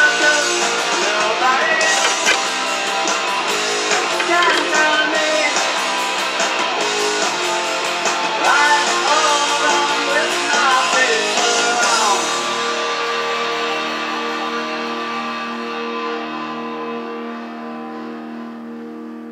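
Rock band recording with guitar, bass and drums playing the closing bars of the song. About twelve seconds in the band stops on a final chord that rings on and fades out slowly.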